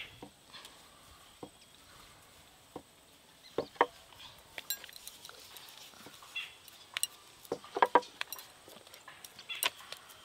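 Scattered light clicks and clinks as hands work dough balls over a steel plate, with bangles knocking against each other and the plate. The loudest clicks come in small clusters about halfway through and again later.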